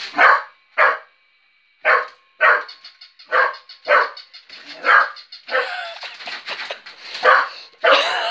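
Working cocker spaniel barking repeatedly at a battery-powered toy puppy, about ten barks, mostly in pairs about half a second apart.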